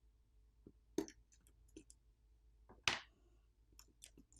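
Small, sparse clicks and taps of a screwdriver and metal and plastic phone parts as the smartphone's main board is unscrewed and lifted out, the loudest about three seconds in.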